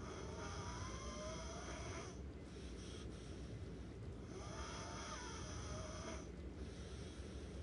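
A person snoring: two long snores about four seconds apart, with a third beginning near the end.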